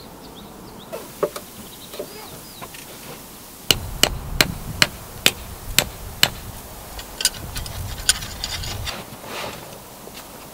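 Hammer driving a metal tent peg into hard ground: about seven sharp strikes, roughly two a second, starting about four seconds in, then a couple of lighter taps.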